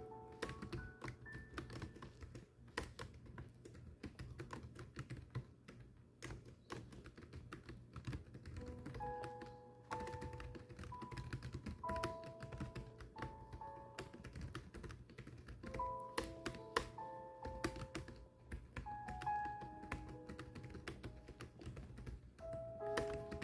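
Steady, irregular typing, many key clicks a second, over soft background music with slow held melodic notes.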